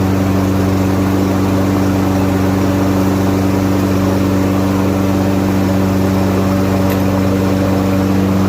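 Briggs & Stratton lawn mower engine running at a steady speed after being started.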